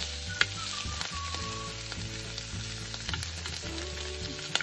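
Paneer slices sizzling in a little oil on a flat tawa as they shallow-fry. Two sharp clicks, about half a second in and near the end, are the steel spoon and wooden spatula knocking the pan as the pieces are turned.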